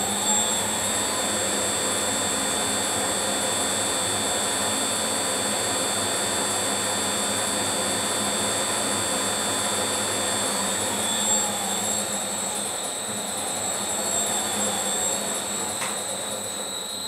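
Smart and Brown 1024 lathe running in screw-cutting gear, a steady high whine, while the cutter takes a light scratch pass along the spiral groove of a brass clock fusee. A single small click comes near the end.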